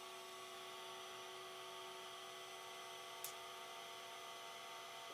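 Tronxy XY3 SE 3D printer humming faintly and steadily, several tones at once, with one faint tick about three seconds in.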